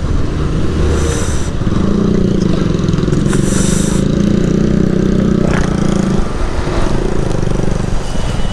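Motorcycle engine running while riding, with rushing noise on the microphone; the engine note holds steady for a few seconds, then drops about six seconds in, and two short bursts of hiss come through early on the ride.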